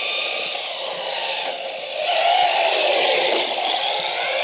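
Traxxas Slash 4x4 VXL R/C truck's brushless motor whining as it drives on pavement, the pitch sliding down and back up as the throttle changes, with tyre hiss underneath. It gets louder about two seconds in as the truck comes close.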